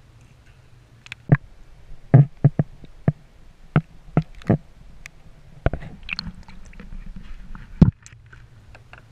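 A string of about a dozen sharp knocks and clicks close to the microphone, irregularly spaced, with the loudest near the start and one more near the end.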